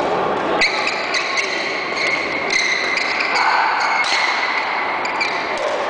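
Badminton rally: rackets striking the shuttlecock in quick exchanges, a sharp hit about every half-second to a second.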